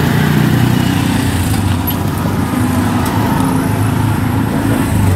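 A motor vehicle engine running close by in street traffic, a steady low hum that shifts slightly in pitch.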